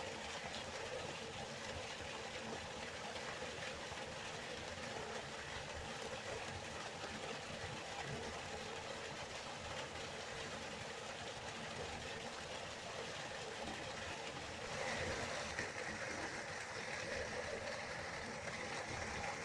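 River water flowing in a steady rush, which turns a little louder and brighter about fifteen seconds in.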